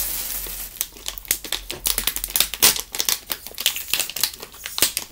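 Crinkling and crackling of small plastic chip pouches being pulled open and handled by two people, a dense run of quick sharp crackles that quietens near the end.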